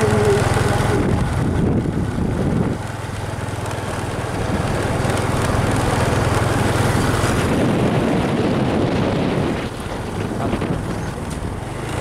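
Small motorbike engine running as it rides along a road, with wind on the microphone; the engine note drops back about three seconds in, picks up again, and eases off once more near the end.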